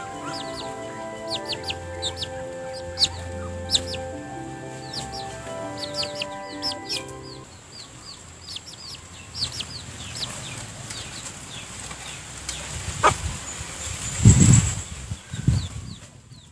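A chick peeping in short falling chirps and a hen clucking, over background music of held notes that stops about halfway. Near the end come a few loud low thuds, the loudest sound.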